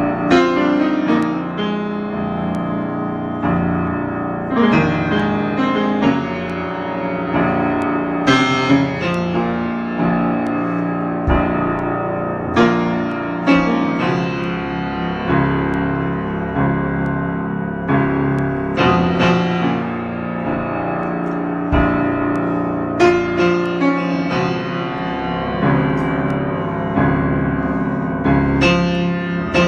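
Solo grand piano improvisation: struck chords and melody left ringing, with strongly accented chords every few seconds.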